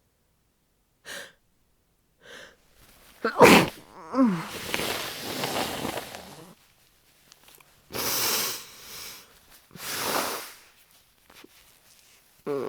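A woman with a head cold sneezing into a tissue: two short catching breaths, then one loud, sudden sneeze about three and a half seconds in, a falling groan after it and noisy breath running on for about three seconds. Two more short, loud nasal bursts follow around eight and ten seconds in.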